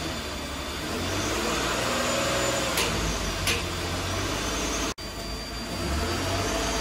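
1992 GMC Sonoma's 4.3-litre V6 running just after being jump-started, its pitch rising and falling once in the middle. Two short clicks come about three seconds in, and the sound cuts out for an instant about five seconds in.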